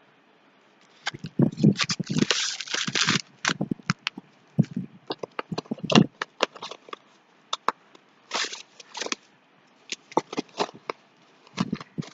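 Paper packing crinkling and rustling as it is pulled out of a cardboard box, with scattered handling clicks and taps. The densest rustle comes about two seconds in and again later.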